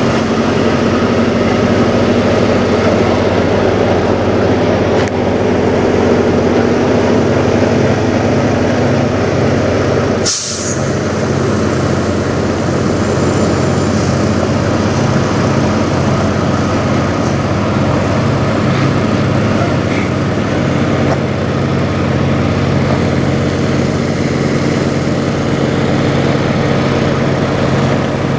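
Semi truck's diesel engine idling steadily, with a short sharp burst of air hiss about ten seconds in from the truck's air brake system.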